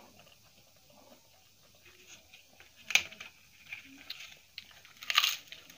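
Quiet chewing of rice and dal, then a few crisp crackles in the second half as a papad is broken by hand, the loudest near the end.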